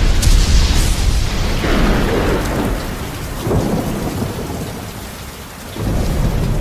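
Thunderstorm soundtrack played through the Asus ROG Strix Scar laptop's speakers: steady heavy rain with deep rolling thunder. The thunder swells several times, eases off and rolls in again near the end.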